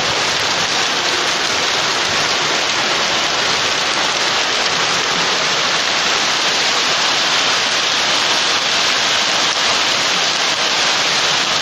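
Steady rain falling: an even, continuous hiss of rain.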